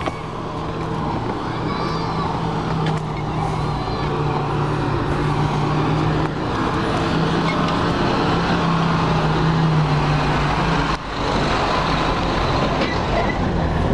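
A bus engine running with a steady low hum as the bus approaches and passes close by. The hum grows louder as it nears and drops off briefly about eleven seconds in.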